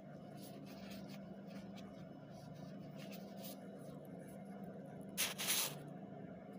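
Soft crinkling and rustling of disposable plastic gloves as a filled pancake is handled and set onto a plate, with a brief louder rustle a little over five seconds in, over a steady low hum.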